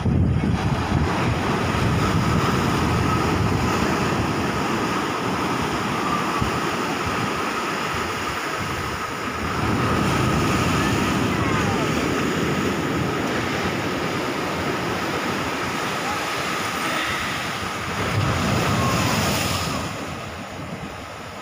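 Sea waves breaking and washing over a rock seawall, rising in louder surges as each wave comes in, with wind buffeting the microphone.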